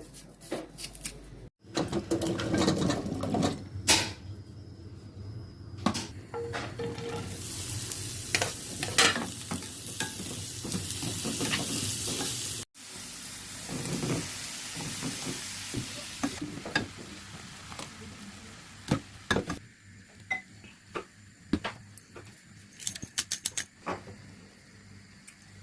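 Pot cooking sounds: food sizzling in hot oil, with a spoon stirring and knocking against the pot. The sizzling hiss is strongest through the middle, and later there are only scattered light knocks.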